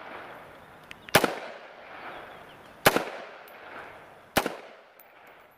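Three single rifle shots from an M16-style rifle, about a second and a half apart, each followed by a fading echo.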